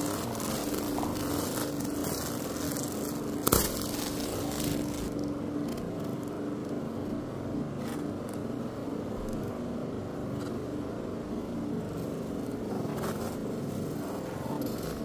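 Plastic bag and bubble-wrap packaging on a watch box being handled, crinkling and rustling, with one sharp knock about three and a half seconds in, over a steady mechanical hum.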